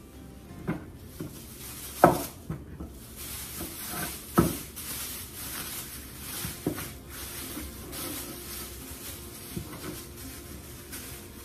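Thin plastic bags rustling and crinkling as raw meat is bagged and the bag is twisted shut. A few sharp knocks as things are set down on the counter, the loudest about two seconds in and again about four and a half seconds in.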